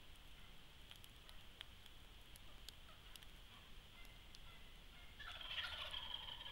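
A wild turkey tom gobbling once, a rapid rattling call starting about five seconds in and lasting just over a second: the male's spring breeding call.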